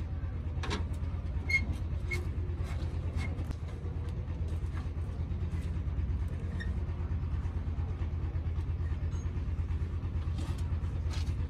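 A steady, low machine rumble with a fast even pulse, with scattered light clicks and taps over it.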